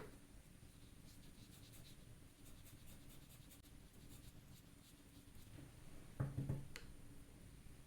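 Faint scratching of writing on paper. About six seconds in there are a few louder knocks, and one sharp click follows just after.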